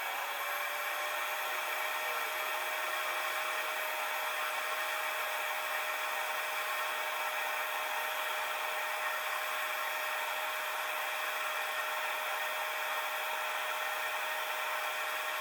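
Diesel air heater running as it warms up after starting: a steady fan whir with a rushing-air hiss and a high hum that rises slightly in pitch at first, then holds.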